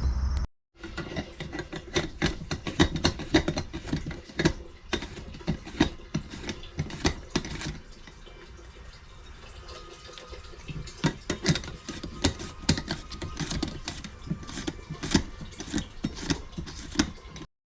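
A run of irregular sharp clicks and knocks, like objects being handled and set down, over a faint steady hum. The clicks thin out around the middle and come thick again near the end.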